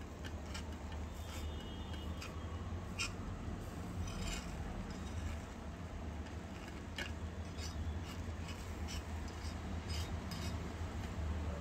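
A spoon scraping and stirring milk that has cooked down thick in a small black kadai, giving irregular scrapes and clicks against the pan. A steady low hum runs underneath.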